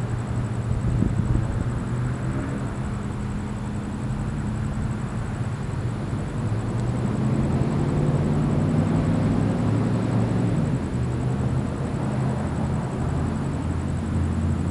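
A motor running with a low, steady hum whose pitch drifts slightly, growing a little louder about halfway through.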